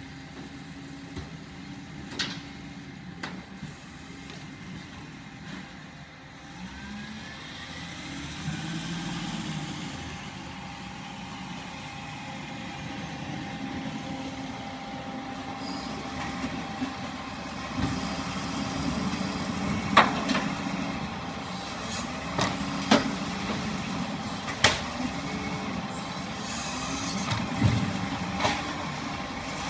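Diesel garbage truck with a Bucher side-loader body running as it drives up and slows beside the kerbside bins, growing steadily louder as it nears. A rising whine comes about eight seconds in, and several short, sharp clicks and hisses come in the second half.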